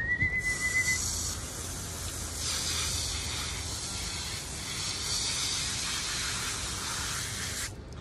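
Garden hose spray nozzle spraying water onto a dog's coat, a steady hiss that cuts off sharply near the end as the nozzle is shut. A brief high whistle sounds in the first second.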